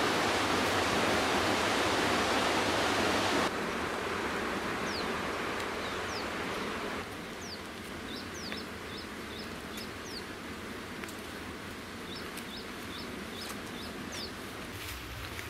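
Steady rushing water, like a stream or waterfall, that drops abruptly in level twice, with birds chirping over it in the later part: series of short high notes and quick downward-sweeping whistles.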